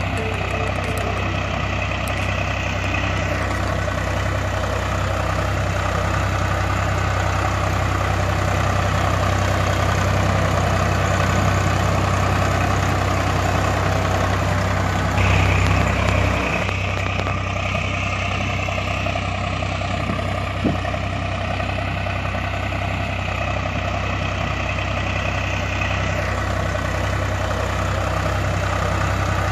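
Tractor diesel engine running steadily at idle, an engine sound effect with an even low pulsing. It grows briefly louder about halfway through, and there is a single short click a few seconds later.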